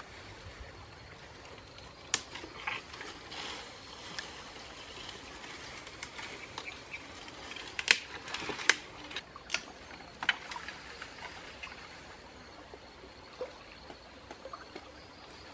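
Wooden branches and twigs cracking and snapping with leaves rustling as a person climbs and shifts about in a tree. The cracks are irregular, the loudest about eight seconds in.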